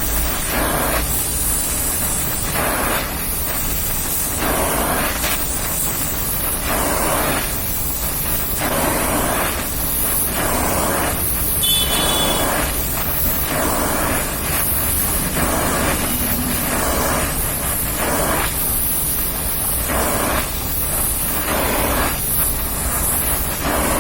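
Oxy-acetylene welding torch flame hissing steadily, its level swelling and easing about every one to two seconds.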